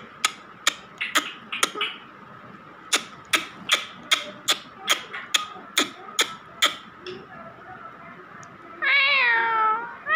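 A run of sharp, evenly spaced clicks, several a second, then about nine seconds in one drawn-out, meow-like call that falls in pitch: a rose-ringed parakeet mimicking a cat's meow.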